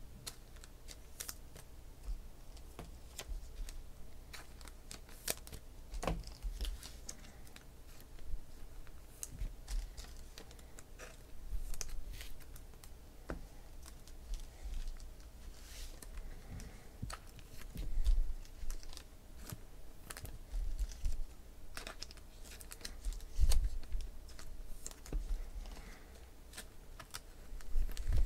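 Trading cards being handled on a table: scattered light clicks and taps as the cards are flicked through and squared, with a few soft knocks as they are set down.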